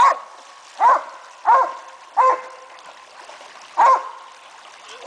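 A dog barking, five short barks, the last after a longer pause, over the steady trickle of a shallow stream.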